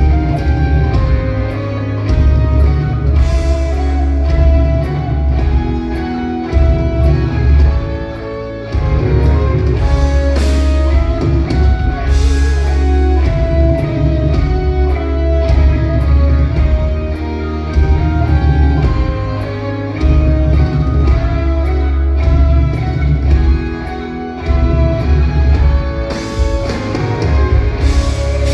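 Live rock band playing an instrumental stretch: electric guitars over bass and drums, loud and continuous.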